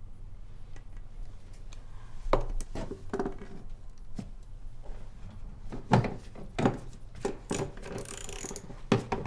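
Scattered knocks, clinks and rubbing of a car part and hand tools being handled while the part is fitted back on, with sharper knocks about two seconds in, near the middle and near the end.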